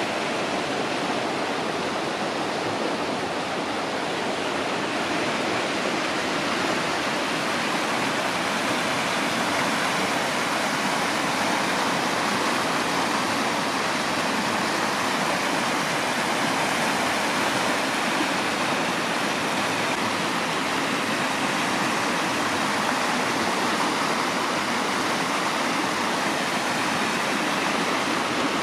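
A steady, even rushing noise with no separate sounds in it.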